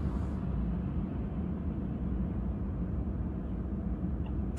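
Car idling: a steady low rumble with no other events.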